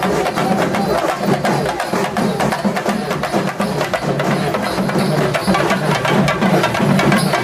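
Fast, dense drumming with music, the drum strokes coming many times a second without a break.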